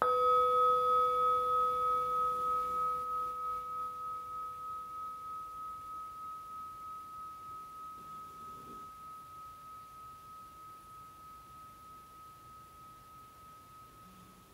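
Metal singing bowl held on the palm, struck once with a wooden striker and left to ring out. A clear high tone with a lower hum beneath it; the hum fades within about six seconds while the high tone wobbles slowly and dies away gradually to the end.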